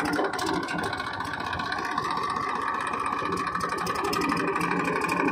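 Massey Ferguson 1035 DI tractor's three-cylinder diesel engine running steadily as the tractor moves slowly over tilled soil.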